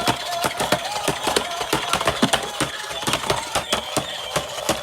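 Rapid, irregular clicks and taps of hard plastic, several a second, as toy parts are handled and snapped together.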